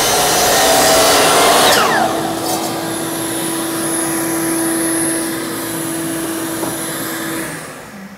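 Miter saw cutting through wood, then its motor winding down in a falling whine about two seconds in as the blade coasts to a stop. A dust-collection vacuum keeps running with a steady hum and high whine, then switches off and winds down near the end.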